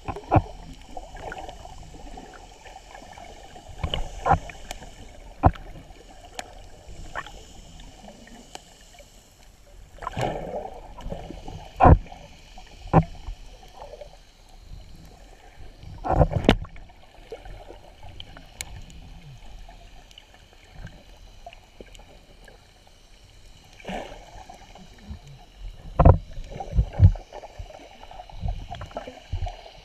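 Muffled water swishing and gurgling as heard by a camera held underwater, with irregular dull knocks every few seconds and a few louder thumps spread through.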